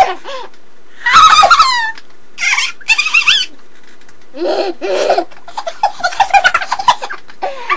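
Sped-up human vocal noises, high and squeaky, in a string of short gliding bursts with gaps between them, turning into quick chattering near the end.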